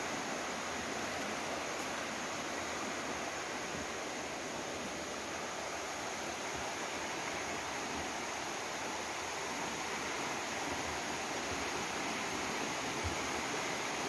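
Steady rushing hiss of creek water running over rocks.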